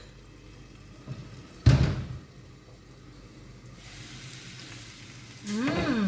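A single loud knock a little under two seconds in, then a faint steady sizzle of vegetables frying in a pan from about four seconds. A short voice sound rises and falls near the end.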